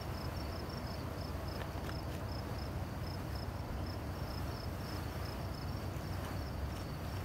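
Crickets chirping, a high pulsing chirp repeating several times a second without a break, over a steady low rush.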